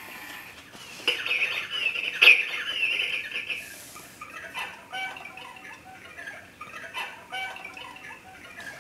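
Electronic cuckoo clock's hourly chime: recorded bird calls played through the clock's newly fitted speaker while the bird figure stands out of its door. A run of high warbling chirps with a sharp click about two seconds in, then shorter chirps repeating about once a second.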